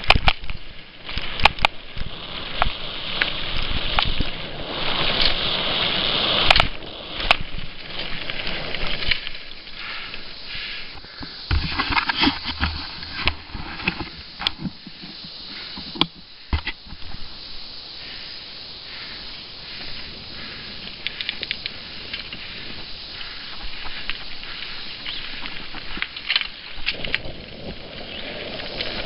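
Mountain bike riding fast down dirt singletrack, heard from a helmet-mounted camera: wind rushing over the microphone and tyres rolling over dirt and leaves, with frequent sharp clicks and knocks as the bike and camera rattle over bumps and roots. Louder through the first several seconds and again around twelve seconds in.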